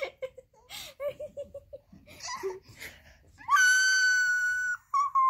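A quick run of giggles, then an eight-month-old baby's long, high-pitched squeal held for about a second, followed near the end by a shorter squeal that falls in pitch.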